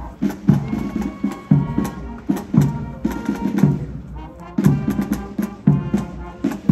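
Marching band playing a march: a bass drum and snare keep a steady beat of about two strokes a second under brass and wind instruments, the drums easing off briefly about four seconds in.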